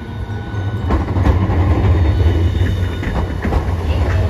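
Hiroshima Electric Railway Green Mover LEX low-floor tram passing close by on street track: a deep running rumble that builds over the first second, with scattered clicks and knocks from the wheels on the rails.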